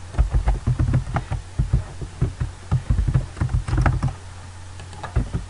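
Computer keyboard typing: irregular key clicks with dull thumps, thinning out about four seconds in over a low steady hum.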